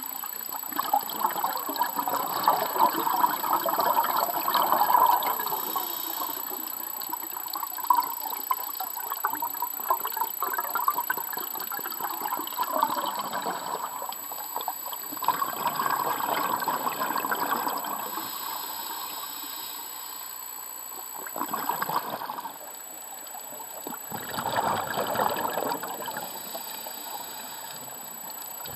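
Flowing water, coming and going in uneven surges.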